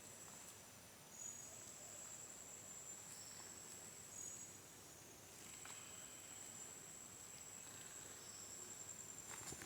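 Faint chorus of insects: one steady, high-pitched trill throughout, with shorter high trills from other insects overlapping it, and a couple of faint clicks.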